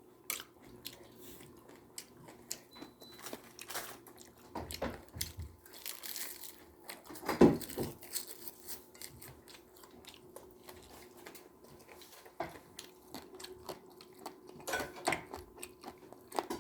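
A child eating clams: close chewing and mouth sounds with scattered small clicks and taps, and one louder thump about halfway through.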